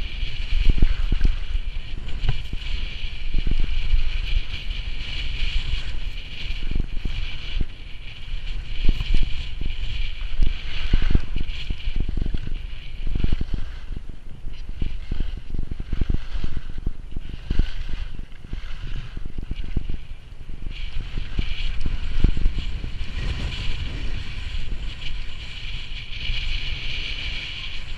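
Wind buffeting the microphone of a camera worn by a skier going downhill, a gusty low rumble, over the steady hiss and scrape of skis running on snow. The hiss softens for several seconds midway, then returns.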